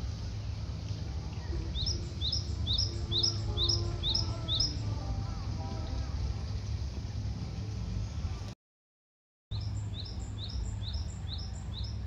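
A small songbird singing a run of short rising chirps, about three a second, twice, over a steady low rumble. The sound cuts out briefly between the two runs.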